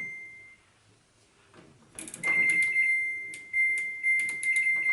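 Washing machine control panel beeping as the programme is set: a high electronic beep that dies away in the first half second, then from about two seconds in a run of beeps that blend into one long tone, broken by clicks from the controls.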